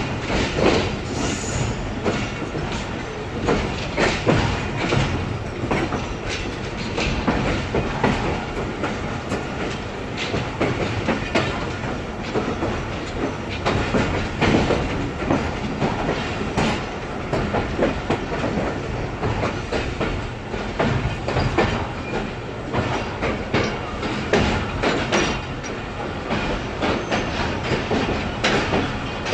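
Pakistan Railways passenger coach running along the track, heard close from its open side: a steady rumble of wheels on rail with frequent clacks and knocks over rail joints and points.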